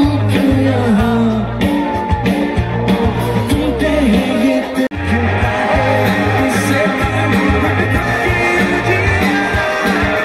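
Hindi rock band playing live: a male voice singing over acoustic and electric guitars, bass and drums. The sound cuts out for a split second about five seconds in.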